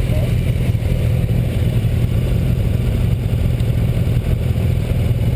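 Sportbike engines idling together in a steady low rumble.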